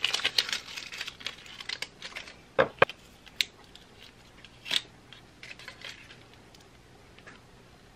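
Thin plastic wrap crinkling and crackling as it is peeled off a new laptop power adapter, with a few sharp clicks and knocks from handling the adapter. The handling sounds thin out to faint ticks in the second half.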